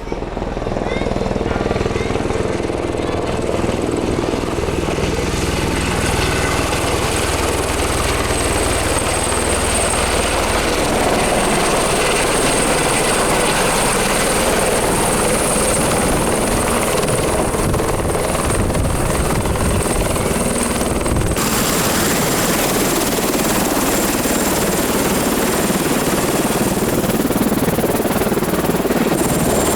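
Helicopter running steadily: engine and rotor noise with a thin high turbine whine over it. The sound changes abruptly about two-thirds of the way through.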